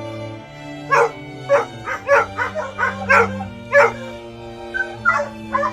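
Hunting dogs barking repeatedly, short sharp barks coming about twice a second from about a second in, over steady background music.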